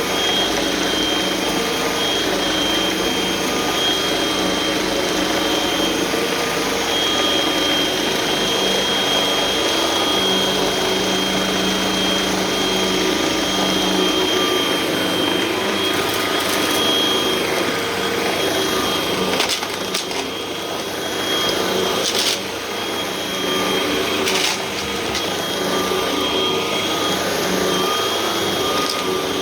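Hoover vacuum cleaner running with its brushroll, a steady motor whine with a high tone on top. A few sharp clicks or knocks come in the second half.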